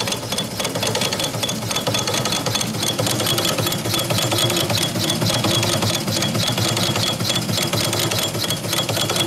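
Quarter-scale steam donkey's twin steam engines running steadily, a fast, even mechanical clatter with a faint steady hiss above it.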